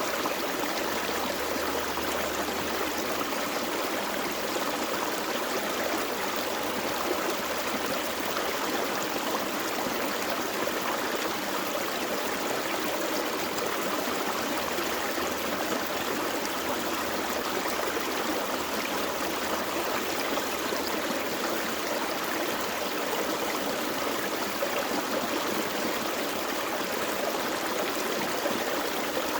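Gentle forest creek flowing steadily, an even rush of running water with no breaks.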